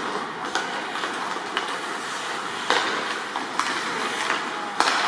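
Ice hockey play: skate blades scraping the ice under a steady rink hiss, with sharp clacks of sticks and puck about once a second, one of the loudest near the end.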